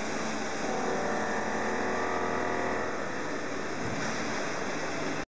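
CNC bed milling machine running with a steady machining noise; a pitched tone comes in about a second in and fades out around three seconds. The sound cuts off abruptly just before the end.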